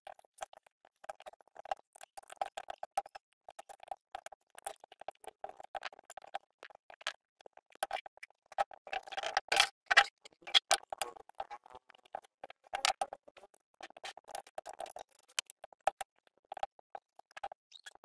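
Rapid, irregular clicking and tapping of a screwdriver and bolts against the metal engine block and workbench, with a slight metallic ring. The densest clatter is about nine to ten seconds in.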